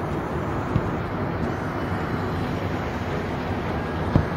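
Swollen flash-flood river rushing, a steady heavy roar of churning water that sits low in pitch. Two short thumps cut through it, one about a second in and a louder one near the end.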